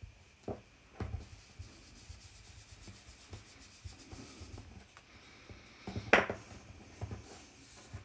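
Quiet rubbing of an applicator pad over a paper die-cut while applying a wax glaze, with light handling taps and one sharper knock about six seconds in.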